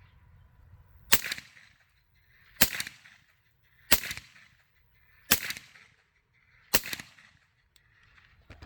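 Five suppressed rifle shots of .308 subsonic ammunition through a home-built suppressor, fired at an even pace about a second and a half apart. Each shot is a sharp crack followed by a brief echo.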